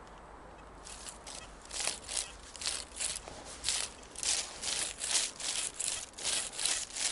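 Footsteps crunching through forest-floor litter, about two steps a second, starting about a second in.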